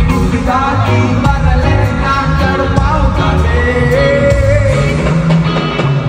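Live band music with a singing voice, heard loud through a phone microphone in a large arena, with a steady bass beat.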